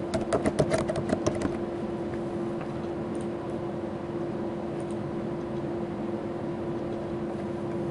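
Rapid computer keyboard typing, a quick run of key clicks for about a second and a half, then a steady hum with only a faint click or two.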